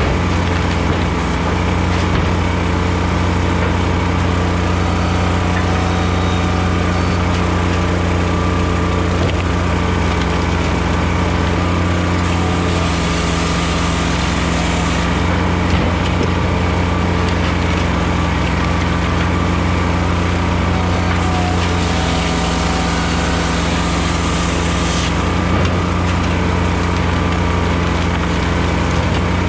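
Blockbuster Jr. firewood processor running steadily on its engine and hydraulics while processing softwood. Twice, for two to three seconds each, a brighter high-pitched sound joins as the bar saw cuts through a log.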